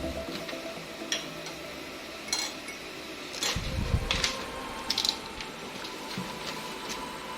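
Hard objects being handled: scattered clicks and light knocks, with a dull thump about three and a half seconds in.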